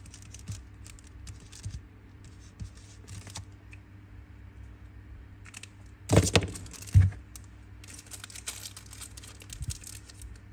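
A brass Zippo lighter being handled: scattered small metallic clicks and clinks, a loud clack about six seconds in and another about a second later, then a quick run of small clicks.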